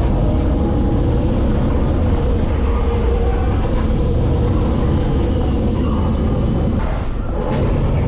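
A steady low rumble, with faint steady tones above it and a brief dip about seven seconds in.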